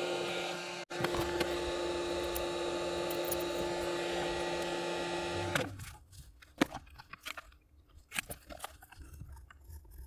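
Hot air rework gun blowing steadily with a held hum, shutting off suddenly about halfway through. After that come scattered small clicks and taps of tweezers handling parts on the circuit board.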